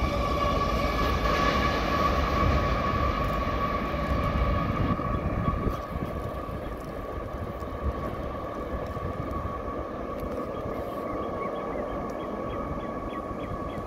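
CSX freight train running on the rails: a low rumble with a steady high-pitched whine over it. The sound gets quieter about six seconds in, and faint regular ticking comes in near the end.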